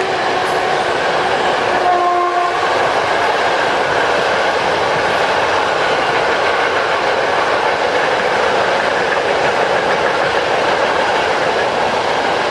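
Freight train hauled by an ET22 electric locomotive passing close by: a steady loud rumble and rattle of wagons running over the rails. About two seconds in, a brief horn tone sounds and stops.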